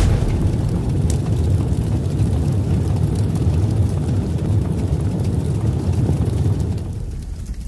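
Deep, rumbling whoosh sound effect of an animated smoke logo reveal: a steady low noise that fades out near the end.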